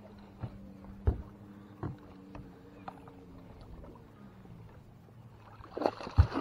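A hooked largemouth bass being fought beside a small fishing boat, with light knocks of handling in the boat and a faint low hum that slowly sinks in pitch and fades. Near the end the bass splashes at the surface beside the hull with a sharp knock.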